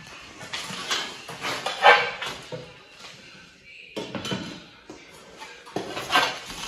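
Ceramic tiles and tiling tools clinking, knocking and scraping on a tiled floor as they are handled, in irregular bursts, with the loudest clatter about two seconds in.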